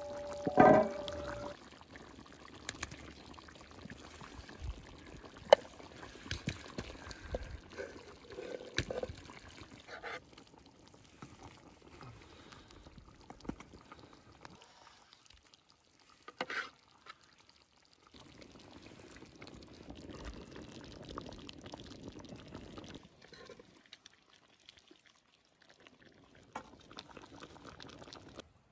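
Cooking at a kazan cauldron: liquid pouring and splashing over lamb ribs, and pieces of food dropped and spooned in, with scattered clicks and knocks of a spoon and of food on the pot. A brief loud ringing knock comes right at the start.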